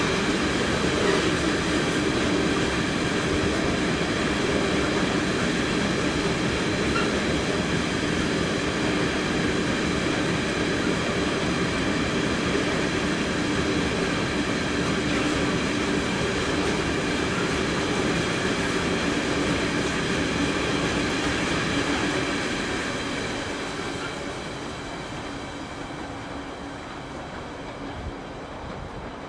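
Freight train of coal hopper wagons rolling past on steel wheels: a steady rumble of wheels on rail with a faint high whine over it, fading away near the end as the last wagons pass.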